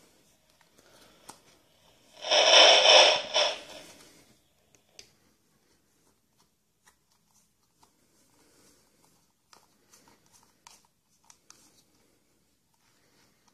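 Hand work on a baitcasting fishing reel while its tension knob is taken off: a loud rasping scrape lasting about a second and a half a couple of seconds in, then faint scattered clicks and taps of small reel parts being handled.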